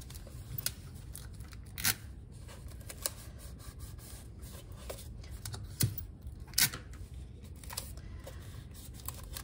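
Clear tape being pulled from a desk dispenser and pressed along a rolled construction-paper tube: a few scattered crinkles and sharp clicks of tape and paper over a low steady hum.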